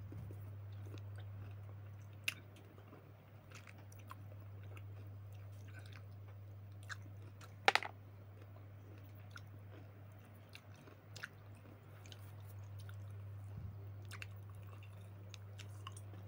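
A person chewing and biting into a very sour citrus, with scattered small wet clicks and crunches, a sharp click about two seconds in and a louder crackle about halfway through. A steady low hum runs underneath.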